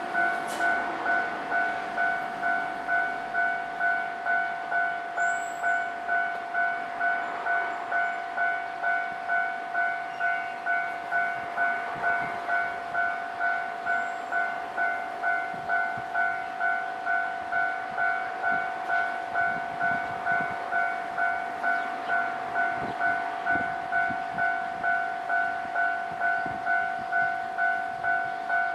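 Japanese railway level-crossing warning bell ringing steadily, one pitched ding repeating about one and a half times a second without a break: the crossing is closed for passing trains.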